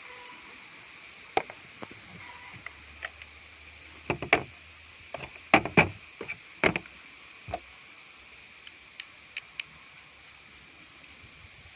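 Irregular clicks and knocks of an airsoft rifle and a small 3D-printed plastic rail riser being handled on a table, with a cluster of louder knocks in the middle and a few lighter ticks near the end.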